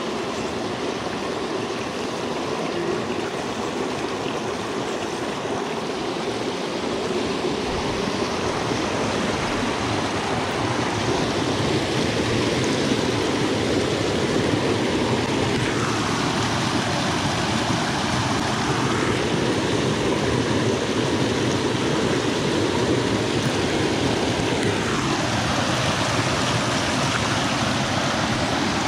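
Small rocky mountain stream rushing and splashing over a cascade in a steady rush, growing a little louder about ten seconds in.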